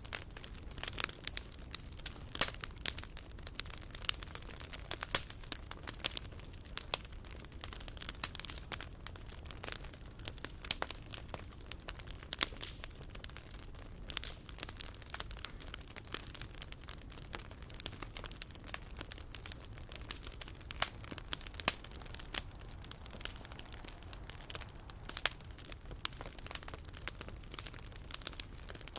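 Bonfire crackling, with frequent irregular snaps and pops over a low steady rumble.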